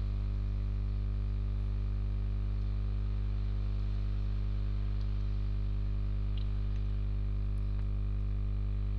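Steady electrical mains hum, strongest low down, with a stack of fainter higher overtones.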